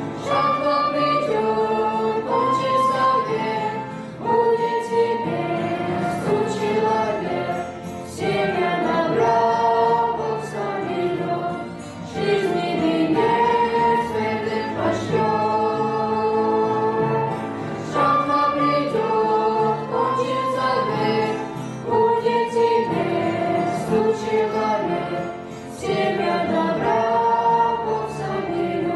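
A group of voices singing a Christian hymn in Russian, choir-style, in phrases a few seconds long.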